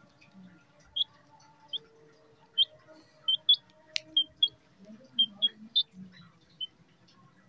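A young chicken chick peeping in short high chirps, about a dozen of them at irregular spacing. There is one sharp click about four seconds in.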